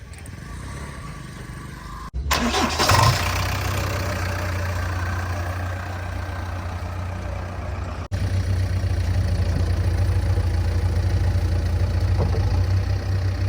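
Diesel engine of the machinery starting with a short loud burst about two seconds in, then running steadily with a low hum. The engine sound jumps louder a little after eight seconds.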